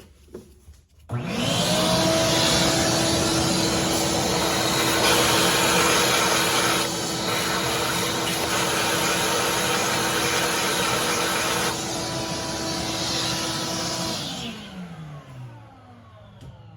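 Shop vac switched on, running with a steady motor whine and a rush of air as it sucks penetrating oil and debris out of a freshly tapped bolt hole. It is switched off near the end and winds down with a falling pitch.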